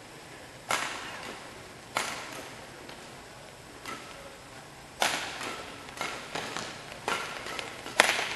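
Badminton rally: racquets striking a shuttlecock in a string of sharp hits, roughly a second or two apart. The last and loudest hit, near the end, is an overhead smash.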